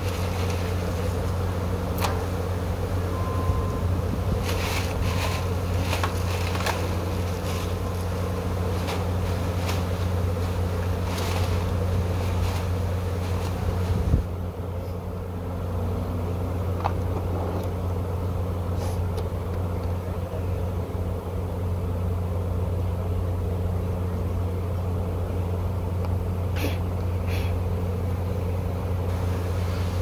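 Steady low buzzing hum of a large honeybee swarm, with a few scattered clicks and knocks and a sharper knock about halfway through.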